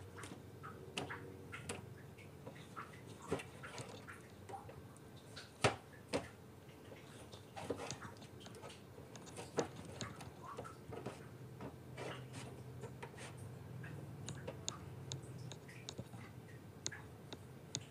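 Knife tapping on a plastic cutting board and the wet slap of raw cuttlefish pieces being handled and scored, in scattered irregular clicks, two of them louder about halfway through.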